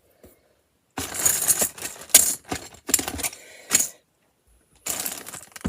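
Small plastic LEGO pieces clattering and rattling as they are handled and sifted, in a run of about three seconds, then again briefly near the end.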